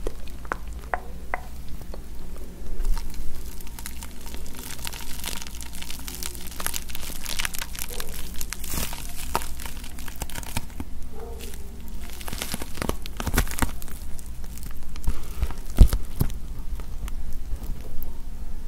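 Bubble wrap crinkled and squeezed between the fingers close to the microphone: a dense, continuous crackling, with a sharper snap about three-quarters of the way through.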